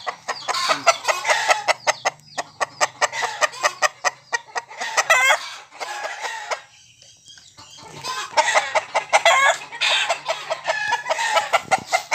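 Roosters clucking and calling, with a quieter break about seven seconds in.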